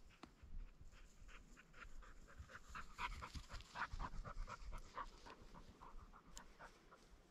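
A dog panting quickly and faintly, short even huffs at about four a second.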